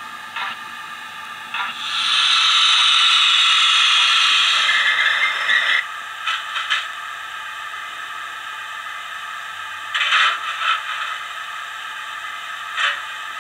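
Digital sound-decoder steam effects from a Hornby OO-scale 'Merchant Navy' locomotive with a Howes of Oxford sound file, played through a bass-enhanced speaker. A few slow chuffs as the locomotive comes to a stand, then a loud steam hiss of about four seconds that cuts off suddenly. After that a steady quieter hiss continues, with occasional short clanks or scrapes.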